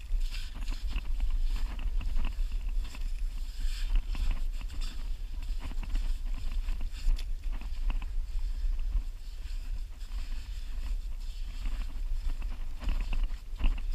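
A gloved hand digging and scraping in wet sand, with scattered short scrapes and crunches over a steady low rumble of wind on the microphone.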